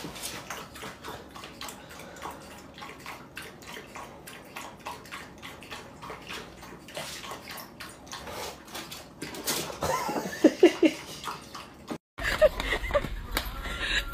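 Small dog lapping water from a bowl: a long run of quick, wet laps. About ten seconds in, a few short, loud voice sounds cut in over it.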